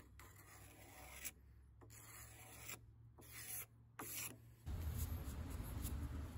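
Steel scraper shaving along a wooden hammer handle, several scraping strokes with short pauses between them, smoothing the handle's rough, dry spots. About two-thirds of the way through, a louder steady low rumbling noise takes over.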